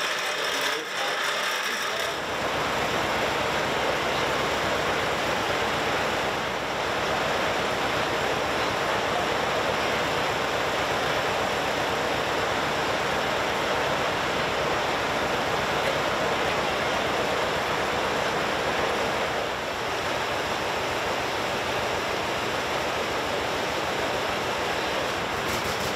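Circular sawmill running: a steady rushing machine noise over a low hum that starts about two seconds in and holds level, with no cut standing out.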